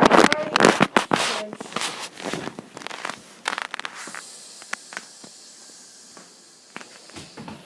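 Plastic Lego pieces clicking and clattering as they are handled, a dense clatter in the first second and then scattered single clicks.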